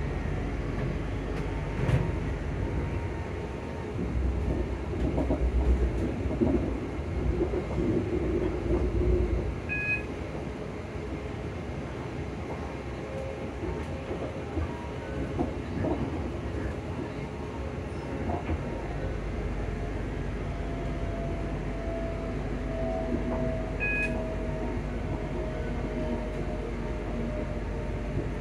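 Inside a ScotRail Class 334 electric multiple unit running along the line: steady rumble of the wheels on the track and the carriage, heavier for a few seconds near the start. Two brief high beeps sound, about ten seconds in and again near the end.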